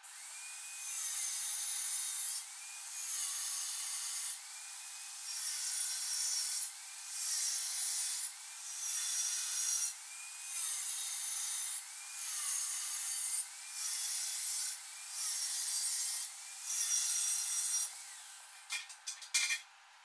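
Handheld electric angle grinder with an abrasive disc running against steel square tubing in about nine short passes, each about a second and a half, under a steady motor whine. The whine rises and falls in pitch between passes as the disc comes off the metal. A few sharp clicks near the end.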